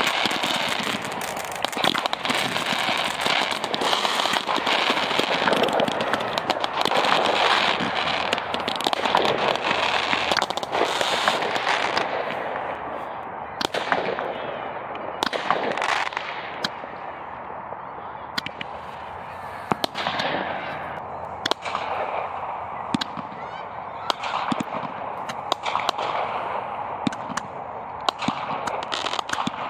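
Fireworks going off: a dense, continuous crackling and hissing for roughly the first twelve seconds, then separate sharp bangs and pops with short gaps between them.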